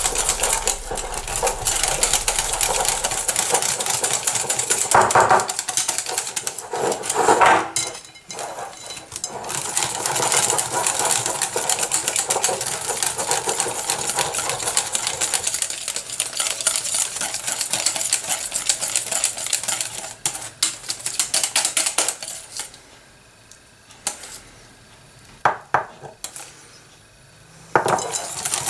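Wire balloon whisk beating a thick flour-and-water batter in a glass bowl: a fast, steady clatter of the wires ticking against the glass. Near the end the beating drops to a few scattered taps for several seconds, then a last quick flurry.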